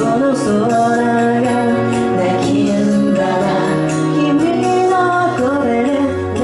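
Upbeat J-pop song played loud, a melody line over a steady drum beat.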